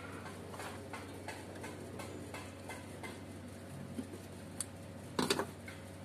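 Small clicks and taps of hands handling a rubber hose and fittings in the engine bay, with a louder clatter about five seconds in, over a low steady hum.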